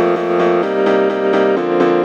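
Background music: a piano or keyboard playing steady repeated chords at about four to five notes a second, the chord changing a little past half a second in.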